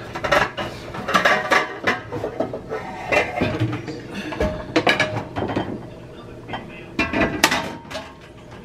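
Metal pots and pans and a glass baking dish clattering and clinking against each other as they are shifted about in a kitchen cabinet and the glass dish is pulled out, in several bursts of knocks.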